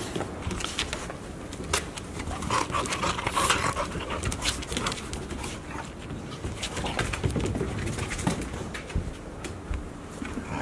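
Golden retriever puppies play-fighting: dog grumbles and growls over a scattered clatter of claws and paws on the hard floor.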